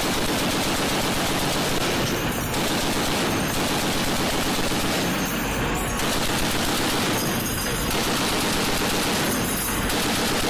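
Ship-mounted M2 .50-calibre heavy machine gun firing in repeated bursts of automatic fire.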